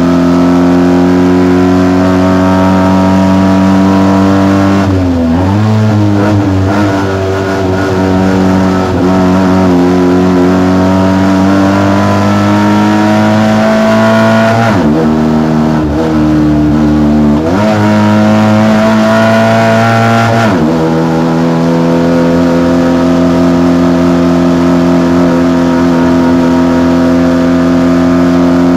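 Fiat 126p hillclimb race car's engine running hard at high revs, heard inside the cabin. The note holds high and climbs slowly, then briefly drops and climbs back about five seconds in, and again twice between about fifteen and twenty-one seconds in.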